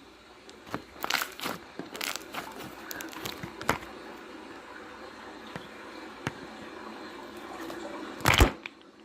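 A run of sharp crackling and crinkling clicks over the first few seconds, then a quieter stretch and one louder crunch near the end.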